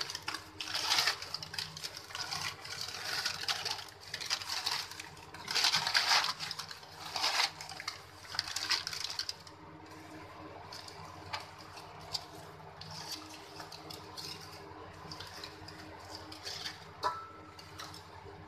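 Dry, scorched newspaper wrapping being crumpled and pulled open by hand, rustling and crackling in loud irregular bursts. After about nine seconds it gives way to quieter crinkling of the aluminium foil underneath, with scattered ticks.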